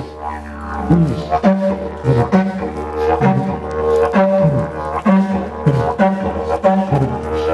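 Didgeridoo playing a steady low drone, with rhythmic swooping accents about once a second.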